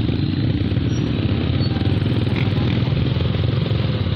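Motorcycle engine running steadily at low speed in slow traffic, heard close up from the rider's seat, with a fast even low chug and the noise of surrounding traffic.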